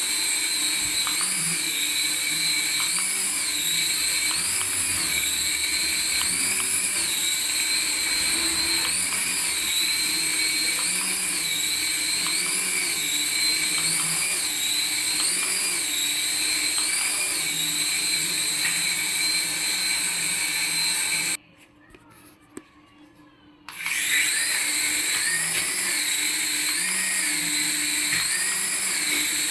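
Battery-operated toy aircraft running: a steady electric motor whine under a looping electronic sound effect whose high tone rises and falls about once a second. It stops for about two seconds roughly three-quarters of the way through, then starts again.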